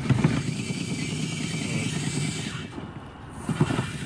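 Small twin-cylinder vertical steam engine on a steam speeder running in reverse, a rapid low rumble. It dips briefly in level about three quarters of the way through.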